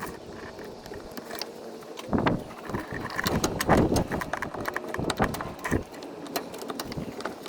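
Irregular light metal clicks and knocks of brake line tube nuts being worked into the ports of a new brake master cylinder, with a louder run of knocks a couple of seconds in.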